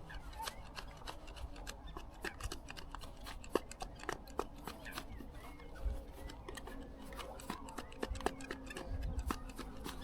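Irregular run of small sharp clicks and scrapes, like fishing tackle being handled close to the microphone.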